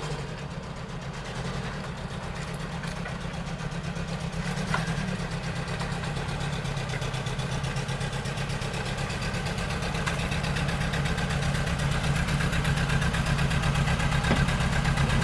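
Nissan 100NX's four-cylinder twin-cam engine running at a steady idle.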